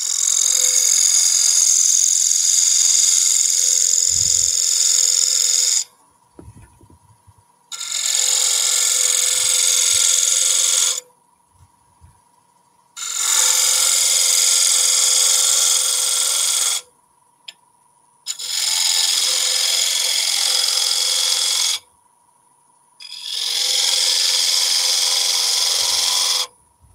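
Turning gouge cutting into a spinning wooden blank on a wood lathe, most likely oak, with shavings coming off: five long cuts of three to six seconds each, separated by brief pauses.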